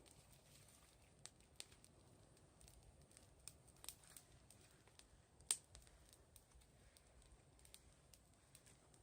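Wood bonfire crackling faintly, with scattered irregular pops and one sharper pop about five and a half seconds in.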